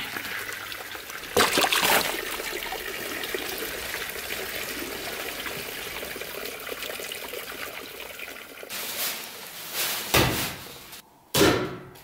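Pump-fed water running and splashing into a small stone-edged garden pond, with a louder splash about a second and a half in and a few short thumps near the end.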